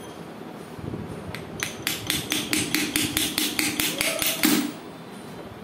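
A rapid run of sharp metallic taps, about five a second, lasting about three seconds and stopping abruptly, like quick light hammer blows on metal.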